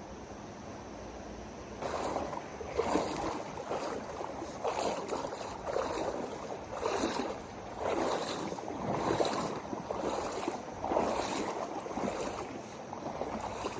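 Water sloshing and splashing in a river in separate surges roughly once a second, starting about two seconds in, over a steady rush of flowing river water: the sound of someone wading through the current.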